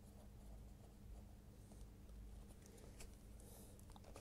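Very faint scratching of a pen writing on notebook paper, in short strokes, over a low steady hum.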